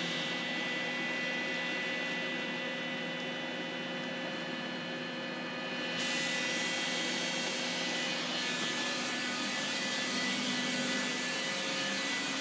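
Steady machinery hum with several fixed whining tones over it; the high hiss rises abruptly about six seconds in and stays.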